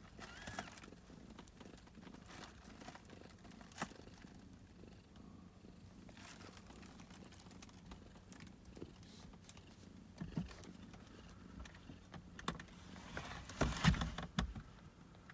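Cat purring softly in a basket of newborn kittens, with a short high squeak about half a second in and scattered small clicks and rustles. A cluster of rustling knocks near the end is the loudest part.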